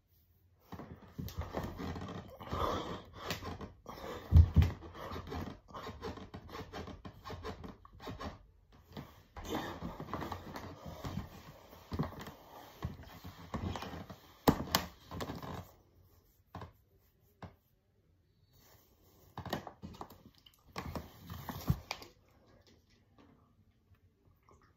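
A man breathing hard, panting in quick noisy breaths from the exertion of push-ups, with a dull thump about four seconds in. The panting stops for a few seconds past the middle, then comes again briefly.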